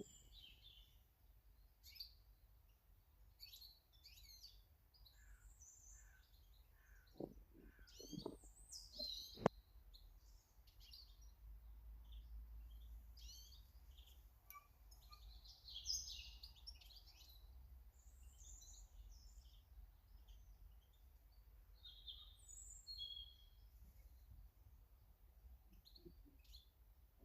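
Small garden birds chirping and calling, short notes scattered throughout. A few soft knocks come around seven to nine seconds in, and a single sharp click about nine and a half seconds in.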